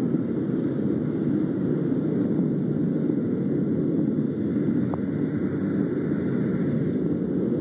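A steady, low, even rumble without clear pitch, unbroken throughout, which the recorder takes for a strange sound coming from the sky.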